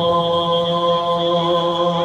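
Buddhist sutra chanting, voices holding one low, steady pitch.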